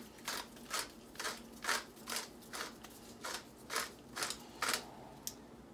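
Pepper mill grinding peppercorns by hand: a crunchy grating in short, even strokes, about two twists a second.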